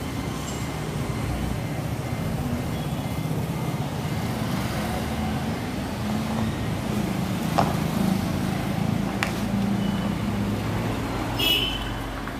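Street traffic: a steady hum of passing cars and motorbikes, with two short clicks in the middle and a brief high chirp near the end.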